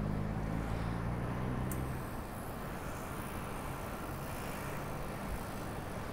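Street traffic: a nearby motor vehicle's engine hums steadily and ends about two seconds in, over a constant rush of road and wind noise.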